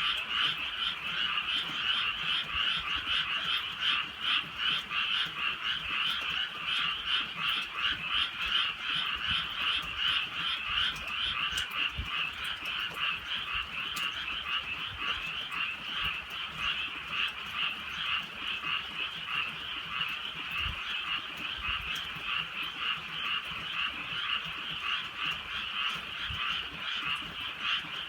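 Chorus of many frogs croaking together at night: a dense, steady stream of rapid, overlapping croaks.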